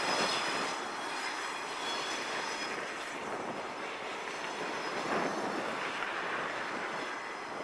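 CN EMD Geep diesel locomotives and a covered hopper car rolling slowly along the track. A faint high wheel squeal at the start fades within the first second or two.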